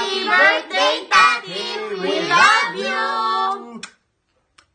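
A group of voices, a child's among them, singing together in a small room. The song ends on a long held note and stops about four seconds in.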